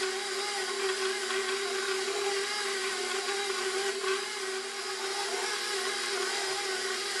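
Professional 6 bowl-lift stand mixer running with a steady whir as its dough hook turns a shaggy dough that has not yet come together into a ball.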